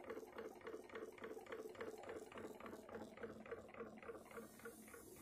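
Pulse-driven electric motor spinning a heavy magnet flywheel past the generator coils, giving a faint, even pulsing hum at about five beats a second.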